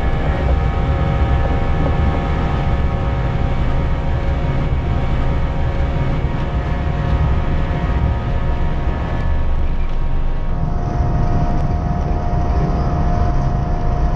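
Airbus A320-232's IAE V2500 turbofans at takeoff thrust during the takeoff roll, heard inside the cockpit: a loud low rumble with several steady whining tones over it, and another steady tone joins about ten seconds in.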